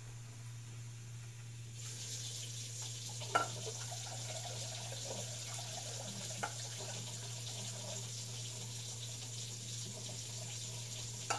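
Kitchen faucet turned on about two seconds in and running steadily as a 2-cup measuring cup is filled with water, with a few light knocks.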